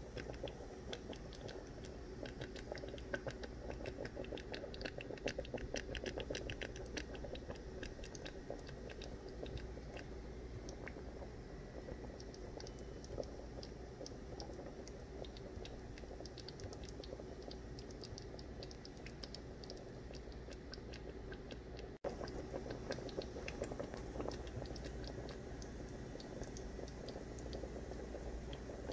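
Chicken adobo braising in a pot, the sauce simmering and sputtering with a steady crackle of small pops and bubbles.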